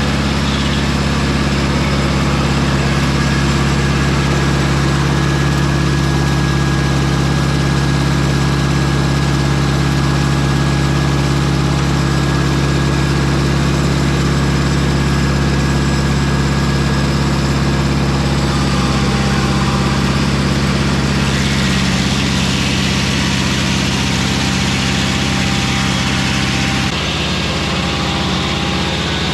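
Mobile Dimension circular-blade sawmill's engine running steadily. Its note changes about two-thirds of the way through and again near the end.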